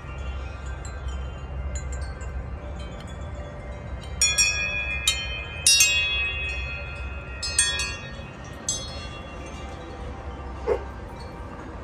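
Tuned metal wind chimes struck by the wind, ringing out in a cluster of strikes that go on for about five seconds, over a steady low rumble of wind on the microphone. A short thump sounds near the end.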